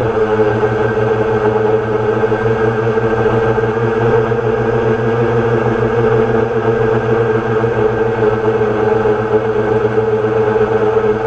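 DJI Phantom quadcopter's electric motors and propellers running with a steady whir as it flies.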